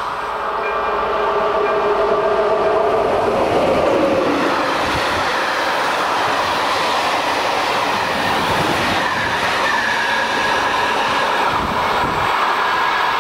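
Locomotive-hauled express train of passenger coaches rolling past at speed: wheels running over the rails with a steady loud rush.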